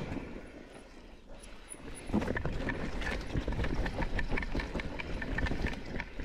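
Mountain bike clattering down a rough trail: rapid, irregular knocks and rattles of tyres, chain and frame. It is quieter for the first couple of seconds, then a dense run of knocks starts about two seconds in.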